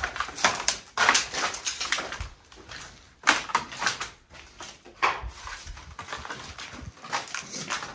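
Irregular crunching and scuffing steps on a gritty floor, with short lulls a couple of times.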